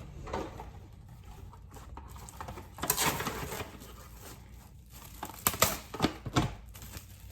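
Plastic cling wrap being pulled off its roll and crinkled as it is pressed over a bowl, with a burst of crinkling about three seconds in and a quick cluster of sharp crinkles near the end.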